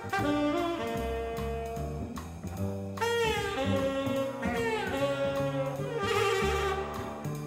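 Instrumental jazz music with a saxophone lead over bass and drum kit; the lead falls in pitch about three seconds in and again around five seconds.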